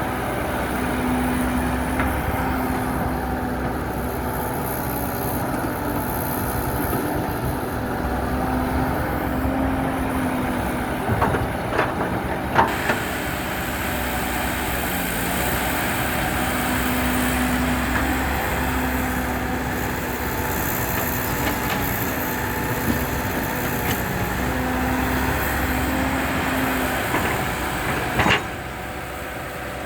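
Diesel engine of heavy earthmoving machinery running steadily, with a few short knocks about eleven to thirteen seconds in and a louder one near the end.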